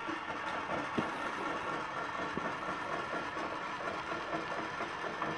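Milling machine table traversing under its power feed: a steady motor and gear whir that winds up and holds an even level, with light ticking from the drive.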